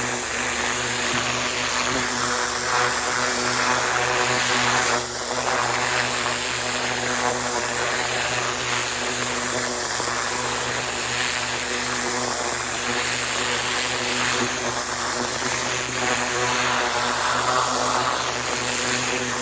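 Pressure washer running steadily, its engine droning under the hiss of the water jet from an oscillating tip being worked through the soil.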